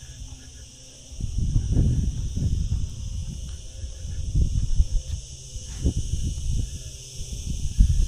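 Wind buffeting the microphone in gusts, starting about a second in, over a steady high chirring of insects.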